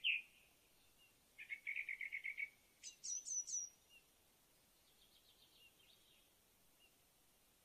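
Songbirds singing: a rapid trill lasting about a second, then four high notes that each slur downward, then a fainter quick series of notes.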